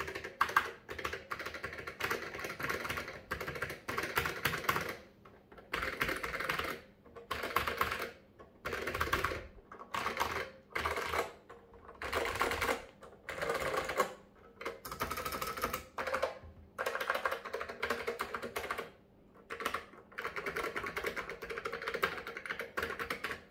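Typing on an HP 46020A keyboard with clicky third-generation Fujitsu leaf-spring switches: each keystroke gives a deep, gentle click. The typing comes in bursts of a second or two, with brief pauses between them.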